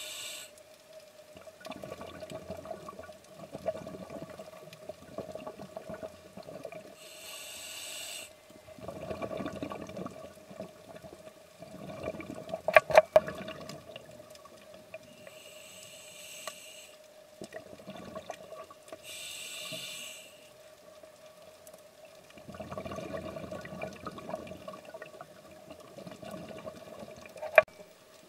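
Scuba diver breathing underwater through a regulator: a hiss on each inhale, about four times, alternating with the rumble of exhaled bubbles, over a steady faint tone. A sharp knock about thirteen seconds in and another near the end are the loudest sounds.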